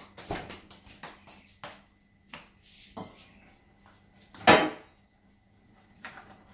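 Kitchenware being handled at a stove: a run of light knocks and clicks, then one louder clatter about four and a half seconds in.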